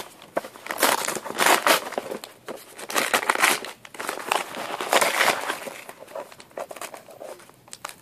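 Bubble wrap crinkling and rustling as hands unwrap a VHS cassette from it, in irregular bursts of handling noise that die down over the last two seconds.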